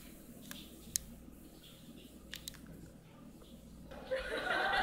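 Quiet room ambience from a fan-event audio recording, with a few sharp, isolated clicks. About four seconds in, audience voices and laughter rise.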